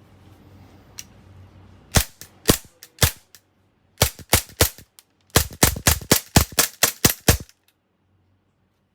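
WE double-barrel M9 gas blowback airsoft pistol firing with its sharp shot-and-slide clacks. First come three shots about half a second apart, then a few quicker ones. Then comes a rapid string of about a dozen over two seconds, which stops suddenly.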